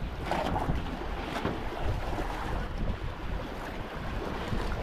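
Wind buffeting the microphone over the wash of sea waves around a small boat, with a couple of brief splashes about half a second and a second and a half in.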